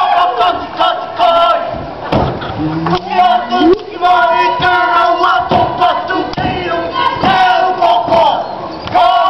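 Polynesian dance performance: a group of voices chanting and shouting together over an audience, with sharp beats now and then.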